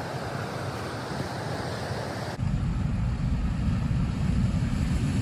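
Ocean surf with wind buffeting the microphone; about two seconds in the sound changes abruptly to louder, closer surf washing over rocks and a pebble beach, a steady low roar.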